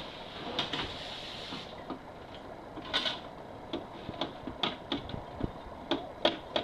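Popcorn popping in the kettle of a movie-theatre-style popcorn machine: irregular sharp pops and clicks, sparse at first and coming more often, and louder, in the second half.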